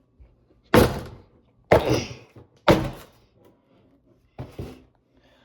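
Three hard thunks about a second apart, then a softer fourth, as 3D-printed brass knuckles with a box-cutter blade strike a target.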